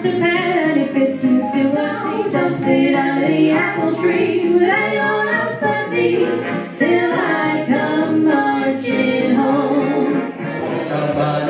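A group of women singing a 1940s-style song together. About 10 seconds in the song cuts off and different music begins.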